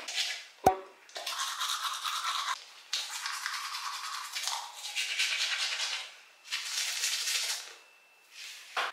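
Manual toothbrush scrubbing teeth in several runs of brushing strokes with short pauses between them, plus a sharp click about a second in.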